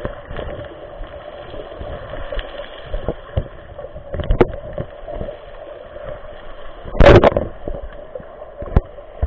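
Sea water heard from inside an underwater camera's housing: a steady muffled rush with scattered knocks, and a loud burst of noise about seven seconds in.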